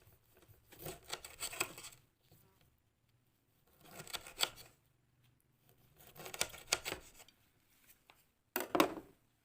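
Knife slicing through a whole lemon with its peel on: four short cutting strokes about two seconds apart, the last the loudest.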